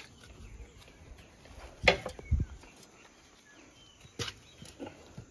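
A few scattered knocks and thumps over a quiet outdoor background, the loudest a sharp knock about two seconds in followed by a low thud.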